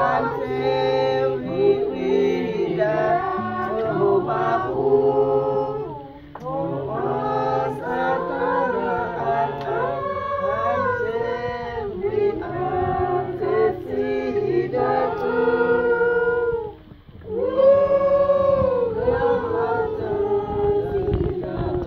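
A group of women and children singing together, several voices on different pitches at once, with short breaks about six seconds in and again about seventeen seconds in.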